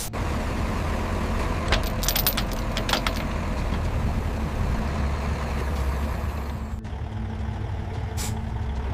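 A heavy vehicle engine running with a steady low rumble. A few sharp metallic clicks and knocks come about two to three seconds in, and another near the end.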